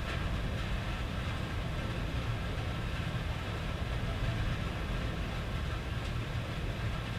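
Steady rain falling on a tin roof, with a continuous low rumble underneath.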